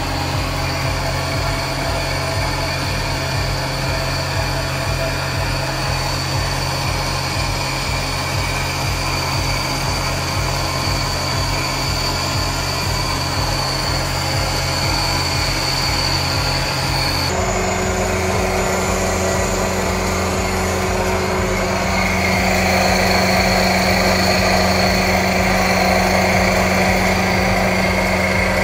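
Milling machine running an end mill through hardened D6 tool steel under coolant: a steady machine drone that steps to a different pitch a little past halfway and grows somewhat louder near the end.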